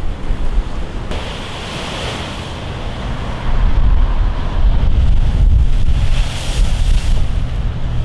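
Rough sea surf breaking and washing up the beach, the rush of water swelling about a second in and again near the end, with wind buffeting the microphone in a heavy low rumble.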